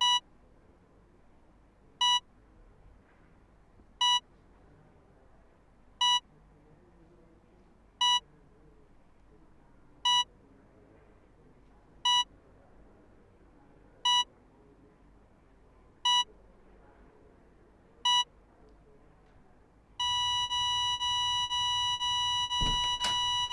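Hospital heart monitor beeping once every two seconds, ten short identical beeps. Near the end the beeps give way to one continuous tone, the flatline alarm that signals the patient's heart has stopped. A few knocks sound under the tone.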